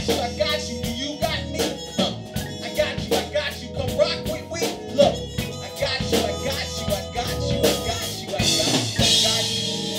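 Live hip-hop and funk band playing an instrumental groove: a steady drum-kit beat over electric bass and keyboard, with no vocal line.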